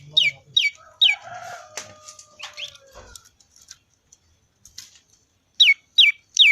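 Prenjak lumut singing: a run of sharp notes, each sliding down in pitch, about two or three a second, in one burst at the start and another near the end. A rooster crows faintly in the gap between them.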